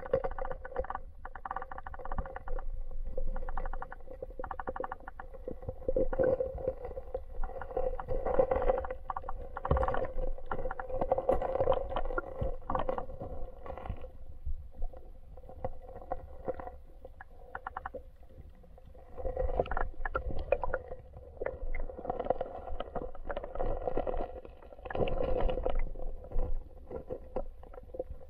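Muffled underwater sound of river current rushing past an action camera held below the surface, with frequent irregular knocks and clatter. It eases off for several seconds about halfway through, then comes back.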